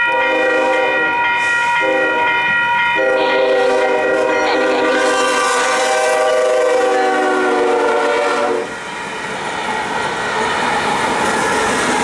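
Union Pacific ES44AC locomotive horn sounding a grade-crossing sequence of blasts, the last one held for several seconds, over a ringing crossing bell. The horn cuts off about three-quarters of the way through, and the steady noise of the passing locomotives and rolling freight cars takes over.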